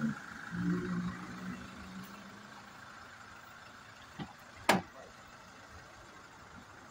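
Steady hum of an idling vehicle, with a muffled man's voice about a second in and two knocks about half a second apart near the middle, the second loud and sharp.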